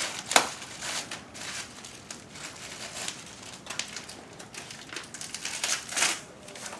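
Packing wrap crinkling and rustling in irregular bursts as it is pulled off a mobility scooter's seat post, with one sharp tap about half a second in.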